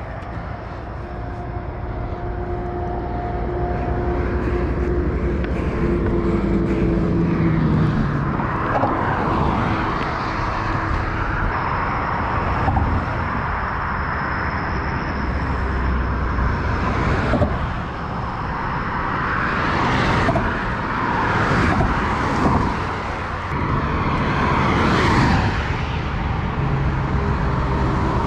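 Road traffic passing: several vehicles go by one after another as swells of tyre and engine noise, and one early on gives a tone that drops in pitch as it passes.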